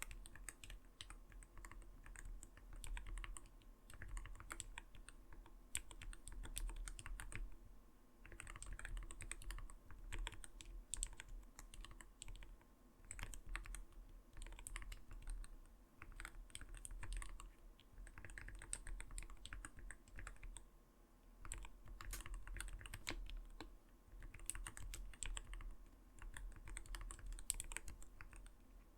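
Typing on an Arbiter Studio Polar 65 mechanical keyboard: rapid key clacks in runs of a few seconds with brief pauses between. The keys give a soft, not-too-light "koto-koto" sound.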